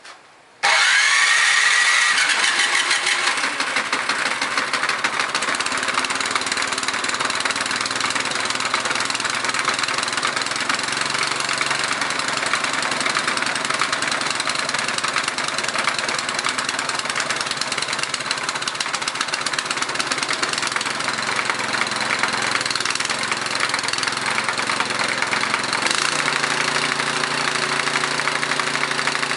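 Craftsman snowblower's small single-cylinder engine cold-starting after sitting over a year on old gas at about 10°F: it catches suddenly about half a second in, revs up briefly, then keeps running steadily. Near the end its running note shifts lower.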